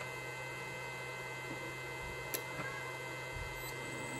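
Steady electrical hum with several faint high-pitched whines, and a single sharp click a little over two seconds in.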